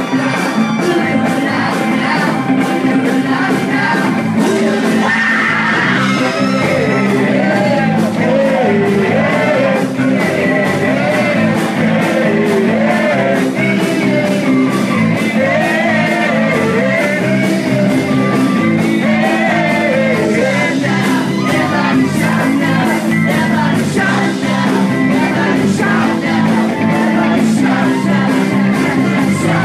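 Live rock and roll band playing with a lead singer, loud and steady, with a driving beat.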